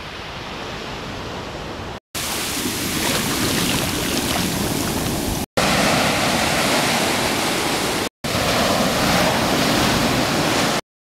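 Ocean surf breaking and washing up the sand, a steady roar with wind on the microphone, in a few short clips separated by brief dropouts; it cuts off to silence near the end.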